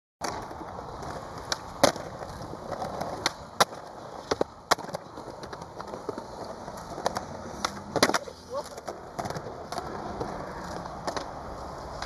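Skateboard wheels rolling, with repeated sharp clacks of the board popping and landing tricks.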